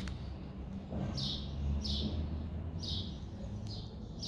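A small bird chirping repeatedly: short, high, falling notes roughly every second, over a steady low background hum.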